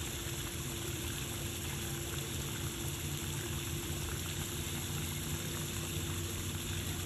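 Steady rushing of running water, even and unbroken, with a faint steady hum beneath it.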